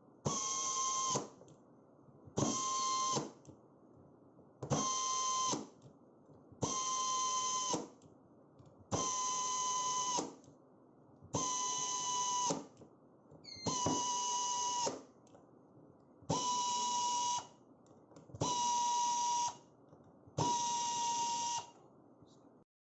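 ASA pneumatic screwdriver's air motor running in ten short runs of about a second each, a steady high whine that starts and stops abruptly, about every two seconds.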